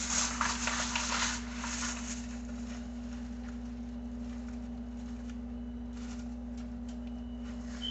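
A hand sprinkling and spreading flour over parchment paper lining a pizza pan: soft rustling and patting of the paper, loudest in the first couple of seconds, then fainter, over a steady low hum.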